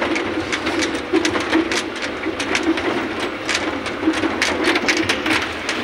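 Vehicle engine running under load with loose rattling and knocking as the vehicle jolts and sways over a rough, rutted dirt road.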